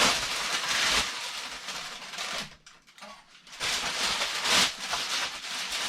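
Packing material rustling and scraping as it is handled and pulled away from a boxed air compressor, in two stretches with a short lull about two and a half seconds in.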